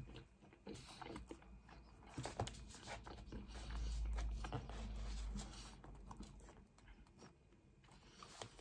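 Close-up chewing of a mouthful of pizza, with many small wet clicks and crackles from the mouth. A low rumble swells for a couple of seconds around the middle.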